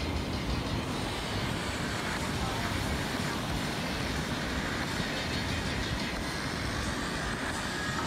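Wind gusting over the microphone in a restless low rumble, over the steady hiss of breaking surf.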